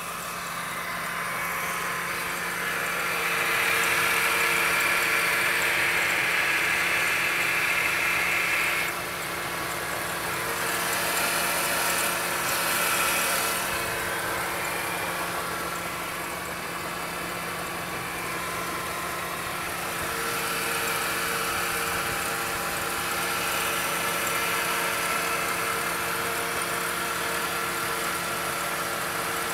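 Mercedes-Benz W203 C-Class engine idling steadily, heard close up in the engine bay by the spinning crankshaft pulley and belt drive. A higher whine over the idle is louder for the first nine seconds, then drops suddenly and carries on fainter.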